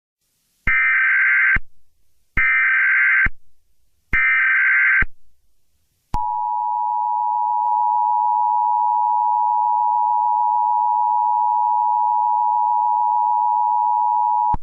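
Emergency Alert System tones: three short bursts of SAME digital header data, each just under a second, each followed by a brief pause, then the steady two-tone attention signal held for about eight seconds.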